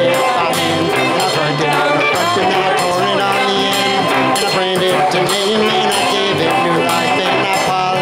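Live band playing a song: drums, electric guitar, bass, keyboard and saxophone, with a steady beat.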